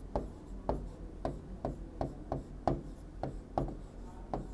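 Stylus tapping and scraping on an interactive display's screen during handwriting, a short light click at each pen stroke, about three a second.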